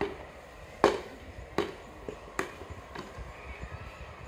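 Sharp, evenly paced knocks, about one every three-quarters of a second, the loudest just under a second in, with a few lighter taps between: rhythmic striking work on a building site.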